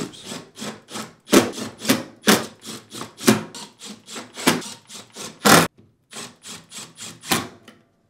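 Cordless drill-driver with a Torx bit running screws into the sheet-metal front panel of a dishwasher door: a quick string of short, sharp strokes, irregularly spaced, that stops near the end.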